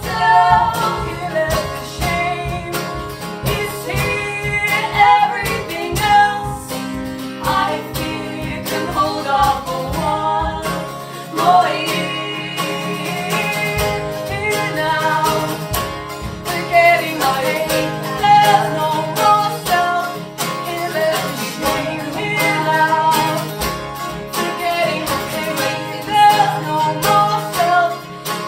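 Live band music: an instrumental passage of the song carried by guitars over a steady bass, with no sung words.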